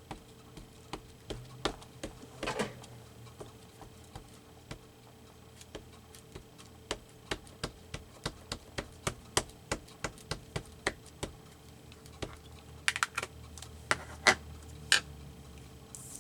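Light taps and clicks of a StazOn ink pad being dabbed against a rubber stamp, a fairly even run of about two to three taps a second in the middle, with a few louder clicks near the end.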